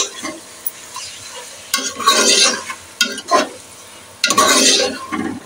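Steel ladle stirring and scraping raw meat chunks through hot oil and onions in an aluminium pot, the meat sizzling as it starts to sear. The stirring comes in three loud strokes, about two seconds, three seconds and four and a half seconds in.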